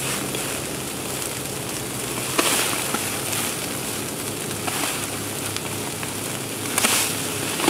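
Small open fire burning on the ground, a steady rushing noise with a few crackles and two brief louder rushes, about two and a half and seven seconds in, over a low steady hum.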